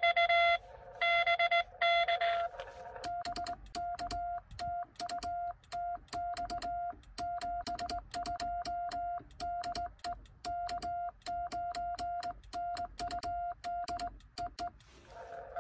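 Morse code (CW) from a Xiegu X6100 transceiver. For the first two seconds or so a received CW signal beeps through band hiss. From about three seconds in, the operator sends on a home-brew cootie sideswiper key: the sidetone beeps dots and dashes, and the key's paddle clicks against its contacts on every element.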